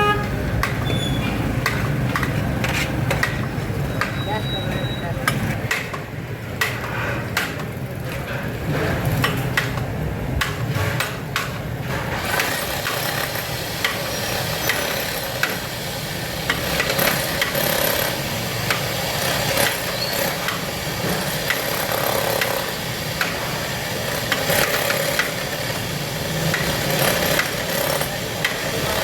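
Busy restaurant kitchen clatter: frequent knocks and clicks of metal utensils and pots over a steady background hum, with voices in the background. The hum eases after about six seconds and a hiss comes in after about twelve.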